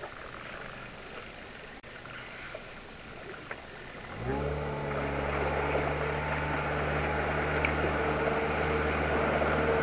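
An outboard motor starts about four seconds in and then runs steadily, driving the inflatable boat along. Before that there is only faint wind and water.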